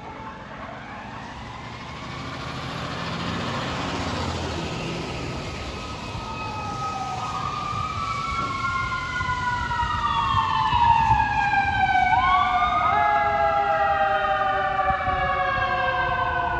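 Sirens of a fire engine and ladder truck wailing together, several sirens overlapping with long rising and falling sweeps in pitch over a low engine rumble. They grow louder through the first two-thirds and are loudest a little past the middle.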